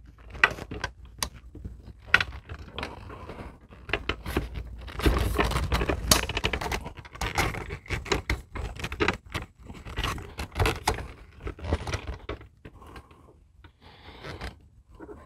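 Metal RV awning arm being worked by hand: irregular scraping and rattling, with sharp clicks as its sliding section is pushed out a notch.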